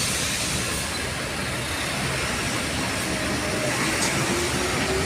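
Diesel bus engines running, under a steady din of vehicle noise.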